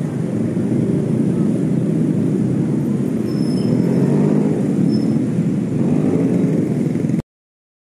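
Loud, steady vehicle rumble close by, with most of its weight low down. It cuts off suddenly about seven seconds in.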